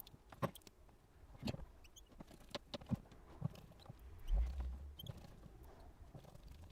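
Light, scattered clicks and taps of small phone parts and tools being handled on a work surface during a smartphone repair, with one low dull thud a little over four seconds in.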